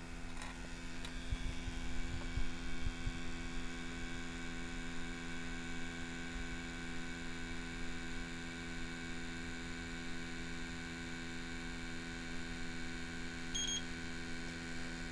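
Steady electrical hum from the HVAC equipment and leak detector while an electronic refrigerant leak detector warms up, with a short electronic beep near the end as the detector finishes warming up.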